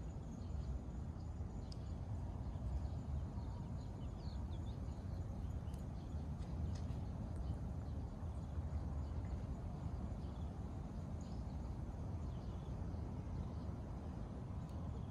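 Outdoor ambience: a steady low rumble with faint, scattered chirps of small birds.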